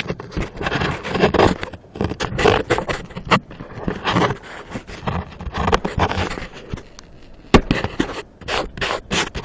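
Handling noise: the microphone rubbing and knocking against jacket fabric as the camera is held to the body, with irregular scraping and rustling. A sharper knock comes about three-quarters of the way through.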